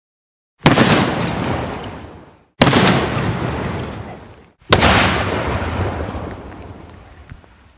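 Explosion sound effects: three sudden loud blasts about two seconds apart, each dying away in a rumbling tail of about two seconds, the last fading longest.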